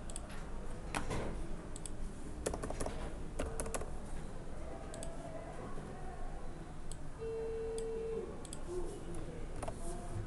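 Computer keyboard keystrokes and mouse clicks, scattered sharp clicks with a cluster between about two and a half and four seconds in, over a steady low background hum. A short steady tone sounds for about a second about seven seconds in.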